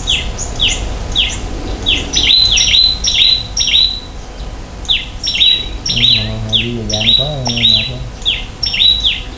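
A songbird singing a quick series of short, sharply falling high notes, two or three a second, with a brief pause near the middle.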